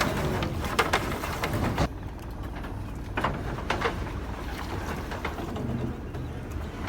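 Mekong slow boat's engine running steadily with a low rumble, with a few short knocks and a hiss of water or wind that fades out about two seconds in.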